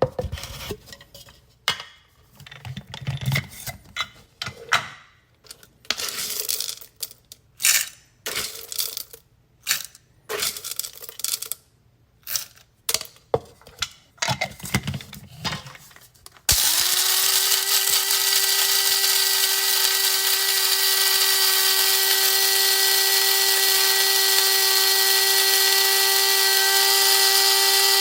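Irregular clicks, rattles and scrapes for about sixteen seconds, then an electric coffee grinder's motor switches on, spins up in a moment and runs with a steady, even whine while grinding coffee.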